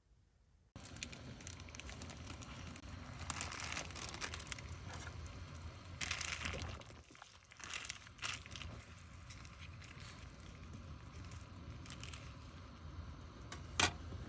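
Plastic packaging, a pouch of ready rice, crinkling and crackling in irregular bursts over a steady low hum.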